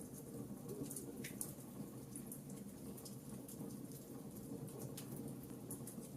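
Fireplace fire crackling: scattered small, irregular pops and snaps over a steady low rush of flame.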